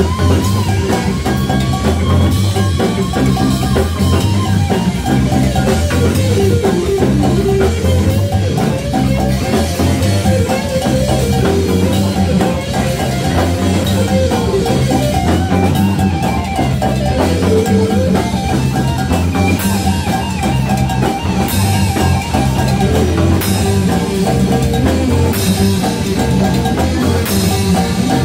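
Live Latin-rock band playing an instrumental passage: drum kit and percussion over a repeating bass line, with a lead melody winding above.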